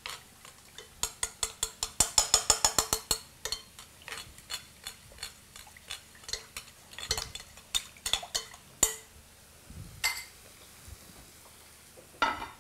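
A utensil clinking and scraping against a bowl as food is stirred: a fast run of clinks, about seven a second, for two seconds starting about a second in, then scattered clinks and taps.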